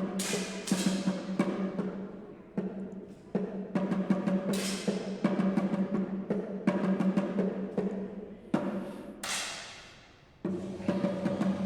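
Drum-heavy percussion music: many irregular drum strikes with ringing tails over a steady low tone.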